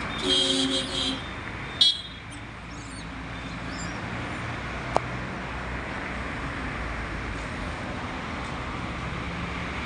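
Steady road traffic noise, with a vehicle horn sounding for about a second at the start and a second, shorter toot just before two seconds in.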